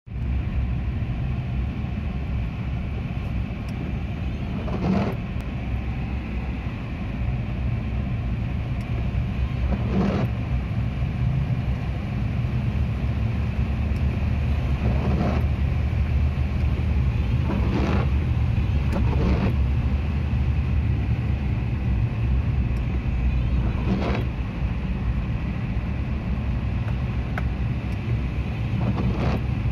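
Steady low rumble of a car's engine and tyres on a wet, waterlogged road, heard inside the cabin. Brief swishes of the windscreen wipers recur about every five seconds.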